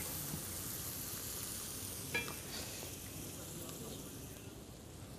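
Diced peppers and onions sizzling in oil in a pot as they are sautéed, stirred with a wooden spoon. The steady hiss slowly gets quieter, with one short clink about two seconds in.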